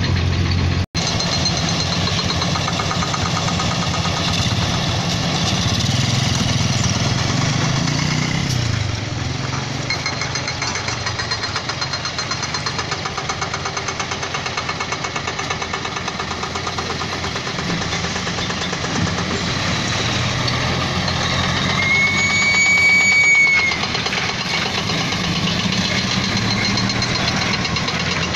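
Heavy diesel engine idling steadily, from the loaded excavator and lowbed truck. The sound cuts out for an instant about a second in. Near the end a high whistle-like tone sounds once for about a second and a half.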